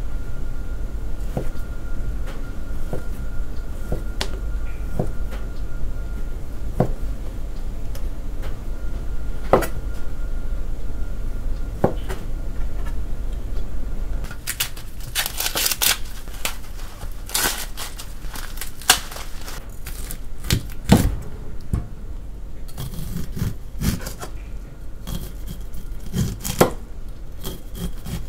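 Chef's knife cutting slab bacon on a cutting board: single knife strokes about every second or two at first, then quicker, denser strokes in the middle. Near the end the knife cuts kernels off a corn cob.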